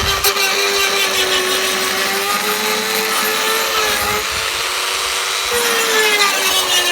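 Dremel rotary tool running at high speed, grinding out a crack in a car bumper. Its steady high whine sags and recovers as the bit bites into the material, rising sharply once near the end.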